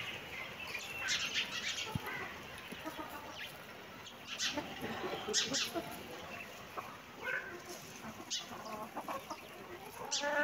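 Backyard hens clucking on and off while foraging, with a few short, sharp, high calls scattered through.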